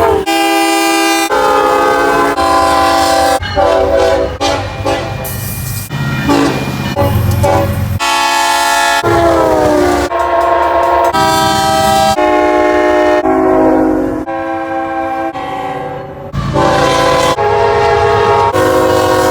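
A rapid series of different train horns, each sounding a chord of several steady tones, edited one after another so that the horn changes abruptly every second or two.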